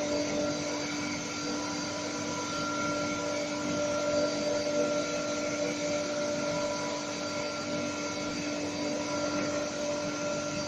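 Oil refinery plant machinery running: a steady mechanical hum with a few constant tones over a hiss, as from electric motors and pumps.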